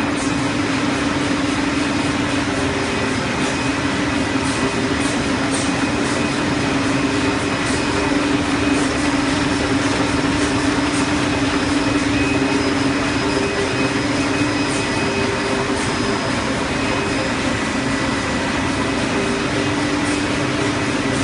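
Sheet-fed offset printing press running: a steady machine drone with a faint high whine and light clicks now and then.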